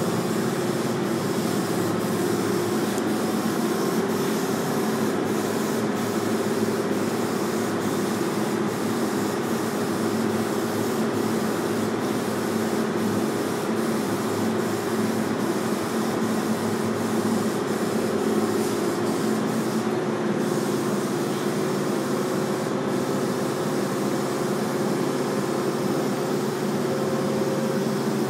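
An air compressor runs steadily, a constant hum under the hiss of a paint spray gun spraying.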